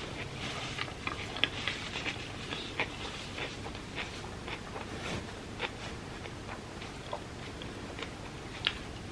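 Close-miked chewing and biting of soft, saucy food, a steady run of irregular wet mouth clicks and smacks, with a sharper bite about one and a half seconds in and another near the end.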